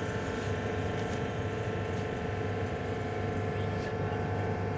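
Steady drone of a cargo ship's engines and deck machinery, with a constant low hum and several fixed tones that do not change.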